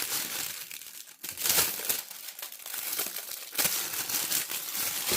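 Plastic shrink wrap crinkling and tearing as it is handled and pulled off packed parts, in irregular rustling spells, loudest about a second and a half in and again past the middle.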